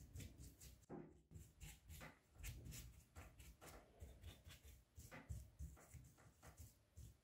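Paintbrush dabbing and stroking paint remover onto a rusty steel pipe wrench: faint, irregular bristle swishes and light scrubbing, a couple of strokes a second.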